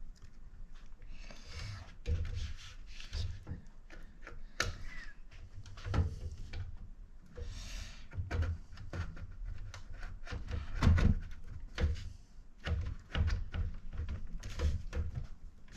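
Computer parts being handled and fitted into a PC case: irregular knocks, clicks and rubbing, a few sharper knocks among them.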